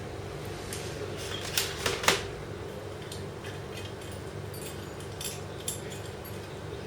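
A few sharp clicks and clinks, the loudest about two seconds in, with fainter ones later, over a steady low machine hum.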